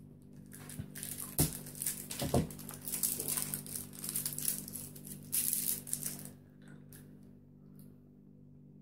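Hard root beer barrel candies being unwrapped and put in the mouth: crinkling wrapper and sharp little clicks of candy against teeth, two of them loud, stopping about six seconds in. A faint steady hum remains.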